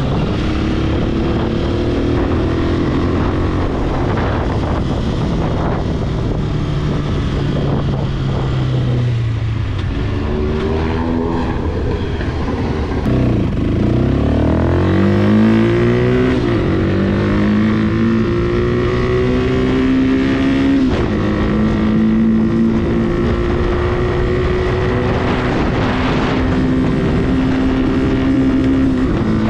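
Italika RT200's 200 cc single-cylinder engine, heard from the rider's seat. The revs fall away to a low point about halfway through, then climb hard, step down once at a gear change about two-thirds in, and hold high and steady near the end.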